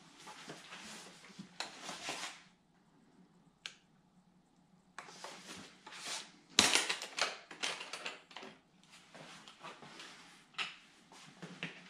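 Footsteps on a tiled floor and the handling of a plastic jerry can: irregular rustles and knocks, with a quiet stretch of a couple of seconds and then a sharp knock about six and a half seconds in, the loudest sound, followed by a few smaller knocks.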